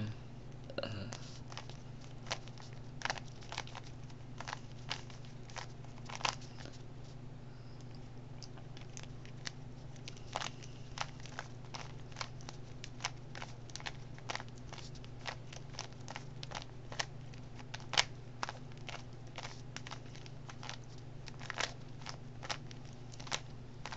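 Rubik's Cube being turned by hand: irregular plastic clicks and snaps of the layers rotating, several a second, with louder snaps about six seconds in and near eighteen seconds.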